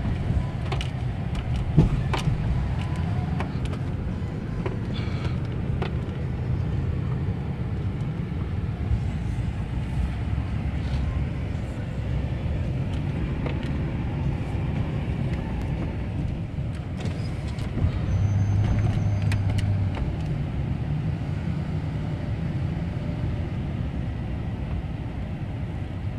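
Pickup truck's engine and road noise heard from inside the cab while driving: a steady low rumble with scattered small clicks and knocks. A brief steady hum comes in about two-thirds of the way through.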